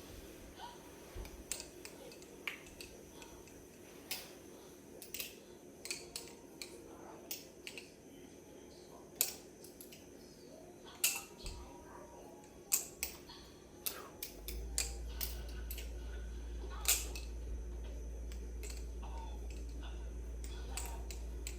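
Balisong (butterfly knife) being flipped: irregular sharp clicks and clacks of the handles swinging and striking, a few louder than the rest. A steady low hum starts about two-thirds of the way in.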